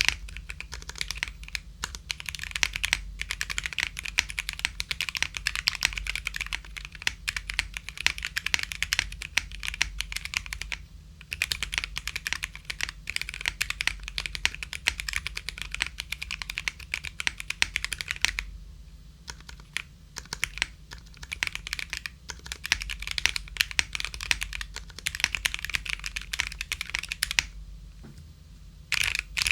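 Typing on an Epomaker GK68XS aluminium mechanical keyboard with lubed and filmed Gateron Yellow linear switches, a polycarbonate plate and Cherry-profile keycaps. It makes a fast, dense run of keystrokes that turns lighter and sparser for a stretch past the middle, then picks up again.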